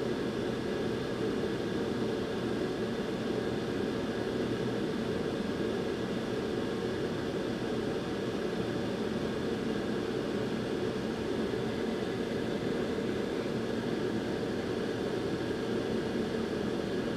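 Hot air rework station blowing a steady stream of air, heating solder balls on GPU memory chip pads so they reflow.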